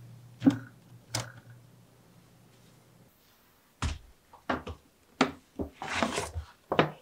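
A knock as a piece of fruit is set down in a wicker basket, and a lighter click soon after. Then a paper shopping bag is handled: short rustles and taps, and a longer rustle as a box is slid out of the bag.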